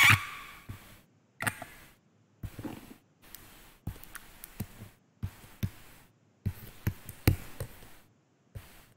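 Stylus clicking and tapping on a pen tablet while handwriting, irregular sharp clicks with faint scratching between them, after a brief louder noise at the very start.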